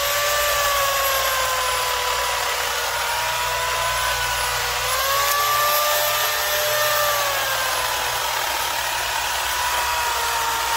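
Homelite 12-amp 16-inch corded electric chainsaw running at full throttle as it cuts through a thick tree branch: a high motor whine over the rasp of the chain in the wood. The pitch sags twice as the chain bites under load and picks up again in between.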